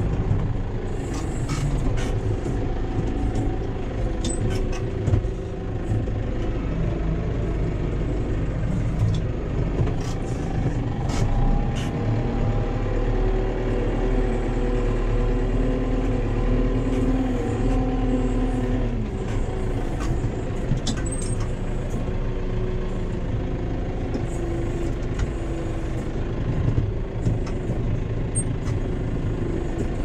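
Case Farmall 75 C tractor's diesel engine running, heard from inside the cab, its revs rising and falling as the front loader lifts and carries a round bale. Occasional clanks and rattles come from the loader and cab.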